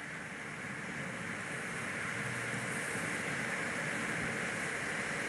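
Steady rushing wind noise, getting a little louder about two seconds in.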